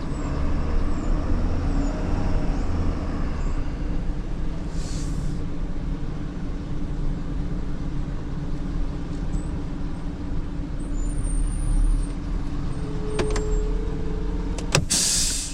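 A truck engine running steadily, with a short hiss about five seconds in and a louder hiss near the end.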